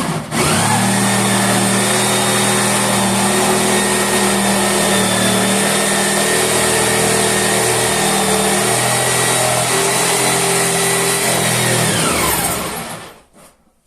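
Electric jigsaw running steadily as its blade saws along a wooden floorboard, with a brief dip just after the start. Near the end the motor winds down with a falling whine.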